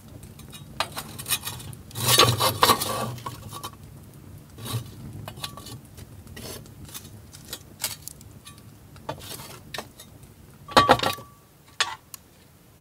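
Metal tongs clinking and scraping against charcoal briquettes and the steel firebox and grate of an offset smoker, with the coals clattering as they are spread. The loudest clatters come about two seconds in and again near the end, each leaving a short metallic ring.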